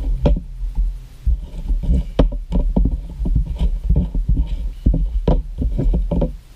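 Homemade glue slime being kneaded and squeezed by hand in a plastic bowl, making irregular clicks, knocks and low thumps that stop shortly before the end.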